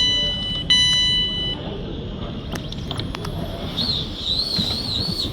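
Electronic train door warning beeps: steady high tones that stop about a second and a half in. They give way to the low rumble of the train, with a warbling high tone near the end.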